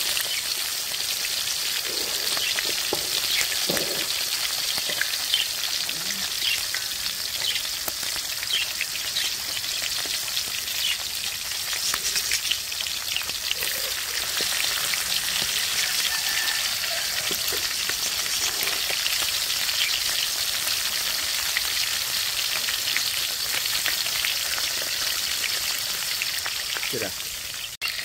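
Chicken leg quarter deep-frying in hot oil in a steel wok: a steady sizzle full of fine crackles. It drops out briefly near the end.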